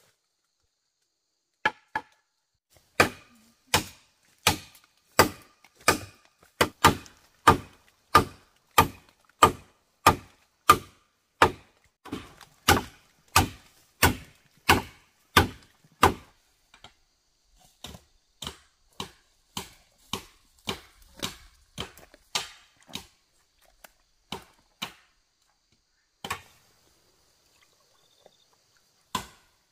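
Wood being chopped with a bladed tool in steady, regular strokes, about one and a half a second. The strokes are heavy for the first half, then lighter, break off for a few seconds near the end and resume just before it closes.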